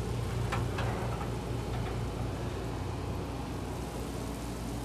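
Steady low mechanical hum, with a couple of light metallic knocks just over half a second in as a metal loaf pan is taken off the oven rack.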